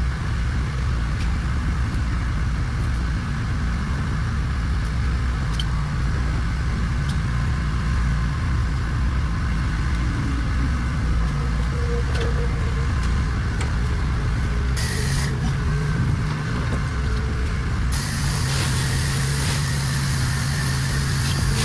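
Pressure-washing rig's engine running steadily with a low rumble. A short spray hiss comes about fifteen seconds in, and a steadier hiss starts near eighteen seconds.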